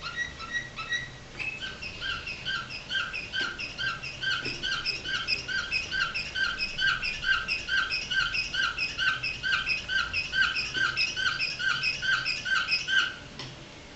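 Domestic canary singing a 'flawta' (flute-style) song. A brief run of quick notes gives way to one short, clear note repeated evenly about twice a second, which stops abruptly near the end.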